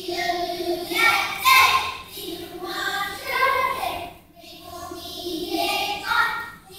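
A choir of young schoolchildren singing a French song together, in short phrases with brief breaks between them.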